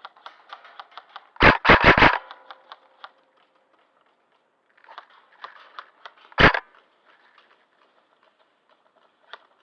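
Airsoft gunfire: a quick burst of four loud shots about a second and a half in, and a single loud shot a few seconds later, with scattered faint clicks of distant airsoft shots throughout.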